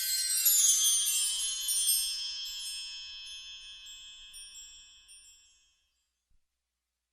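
Magical chime sound effect: a shimmering cascade of high, glittering bell-like tones that sweeps downward in pitch and fades away over about five seconds, then silence.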